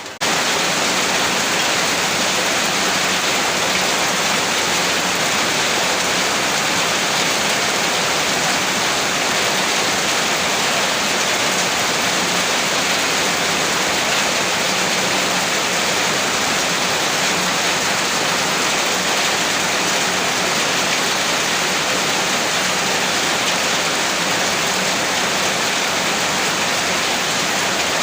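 Heavy rain falling: a steady, dense hiss of many drops with no single distinct strike.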